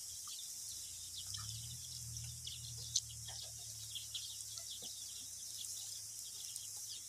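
Faint rural ambience: a steady high insect hiss with scattered small bird chirps. A low hum rises about a second in and fades out a little after five seconds, and a single sharp click falls near the middle.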